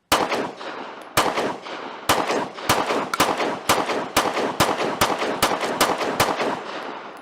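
Glock 43 9mm pistol firing twelve shots, a full 12-round ETS magazine of 115-grain ammunition, the first few about a second apart, then quickening to about two or three a second. Each shot rings out behind it. The magazine empties without a stoppage.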